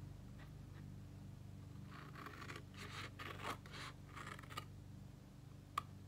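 Small scissors snipping through cardstock, several short, faint scratchy cuts in the middle stretch, with a single light click near the end.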